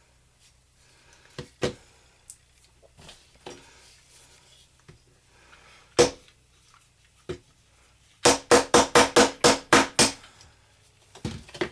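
Small hammer chipping at a hard, dried-out dig block: scattered single knocks, then a quick run of about nine strikes, roughly five a second, and two more knocks near the end.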